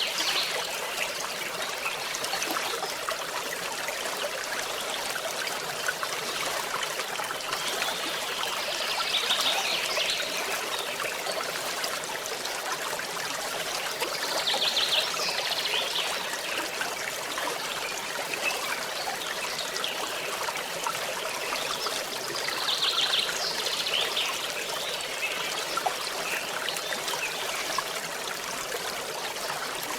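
A stream trickling and babbling steadily, with a few brief louder, brighter swells every several seconds.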